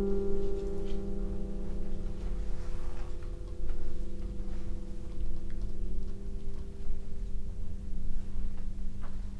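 Grand piano's final chord ringing on and slowly dying away after being struck; the upper notes fade out first and a low note lingers almost to the end, over a faint low rumble.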